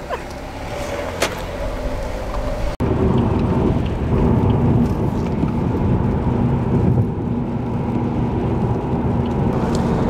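Steady road and engine noise inside a car's cabin at motorway speed, a low rumble with a faint steady hum, starting abruptly about three seconds in. Before that, a quieter noisy background with a single click about a second in.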